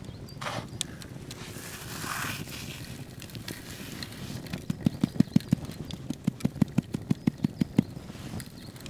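Bare hands patting and pressing breadcrumbs onto a large raw steak: a quick run of soft, dull pats, about five a second, through the second half, with a brief rustle of crumbs about two seconds in.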